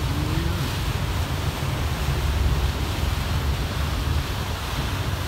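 Steady low rumble and rushing, churning water from a car ferry's propeller wash behind the stern as the ferry gets under way.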